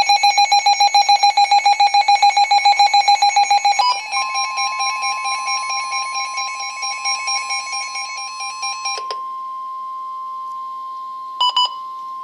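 Emergency Alert System warning tones for a flash flood warning. A loud pulsing alarm runs at about six pulses a second for roughly four seconds. A steady single alert tone then comes in and holds while the pulsing fades away, with two short beeps near the end before the tone cuts off.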